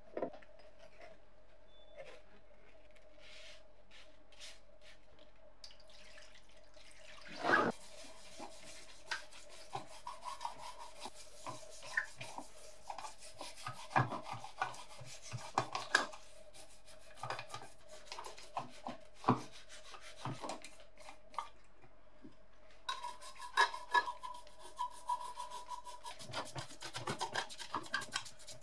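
Small bristle brush scrubbing rust off a wet cast-iron clothes iron: repeated short scrubbing strokes. A single sharp knock comes about seven seconds in, over a faint steady hum.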